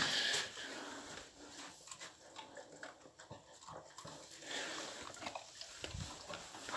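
A dog eating at its food bowl, with soft panting and scattered small clicks of eating. A brief scrape right at the start as the bowl is moved.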